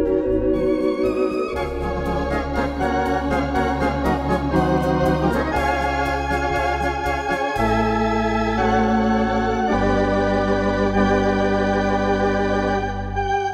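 Ringway Maestro two-keyboard electronic home organ being played: held chords with a wavering vibrato over deep bass notes that change every few seconds, with a light ticking rhythm accompaniment through the middle part.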